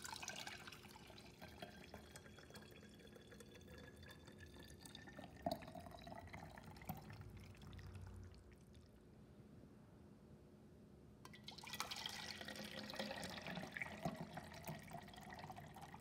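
Thick blended fruit juice poured from a bowl into a glass jar: a faint trickle and splash with a thin tone that slowly rises in pitch as the jar fills. After a short lull about eleven seconds in, the pouring starts again, a little louder, into a plastic measuring jug.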